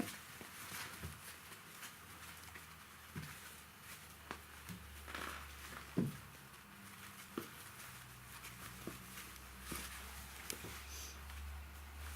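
Three-week-old Siberian husky puppies moving about: quiet shuffling and pattering with scattered small knocks, one sharper knock about six seconds in.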